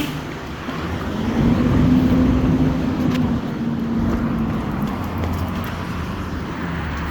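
Garbage truck pulling away, its engine sound swelling about a second in and easing off a couple of seconds later into a steady rumble.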